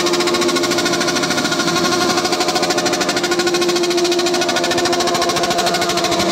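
Motorcycle engine idling steadily, with a fast, even pulse.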